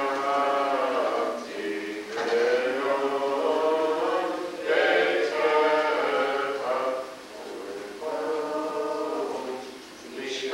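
Hebrew liturgy chanted to a sung prayer melody in phrases of long held notes, with short breaks between phrases.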